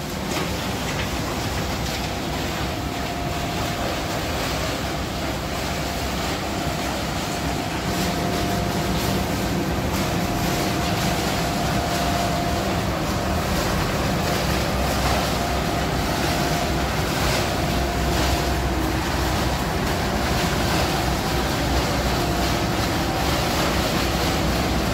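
Steady mechanical drone of a waste-sorting conveyor belt and its machinery running, with a faint constant whine and a lower hum that grows stronger about eight seconds in.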